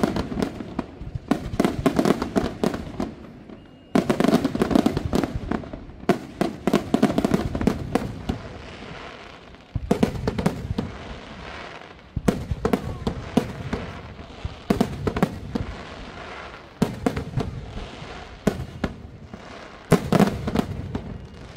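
Aerial fireworks shells bursting in volleys. Each volley opens with a sudden loud burst and goes on in dense crackling and popping that fades away, and a new volley starts every two to five seconds.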